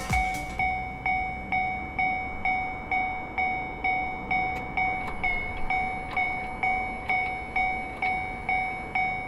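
Japanese railway level-crossing alarm ringing its repeating electronic 'kan-kan' tone, about two strikes a second, each fading quickly. It is warning that a train is approaching the crossing.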